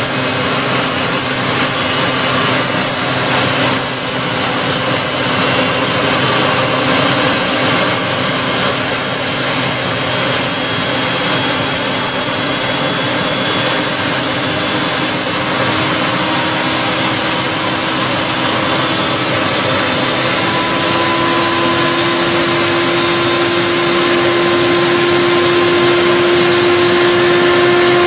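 Homemade turbocharger-based jet engine spooling up during its start: a loud, steady rushing noise with a high turbine whine that rises slowly in pitch, while a leaf blower still blows air into the intake.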